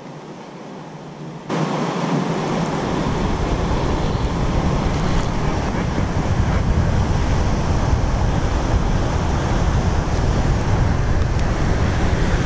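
Wind buffeting the camera's built-in microphone: a loud, rough rumble that starts suddenly about a second and a half in and holds, unbroken, to the end.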